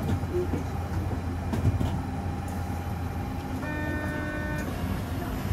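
Osaka Metro Nanko Port Town Line rubber-tyred automated train running slowly on its elevated guideway, heard from inside the car: a steady low hum with running noise. A short pitched tone sounds for about a second a little past halfway.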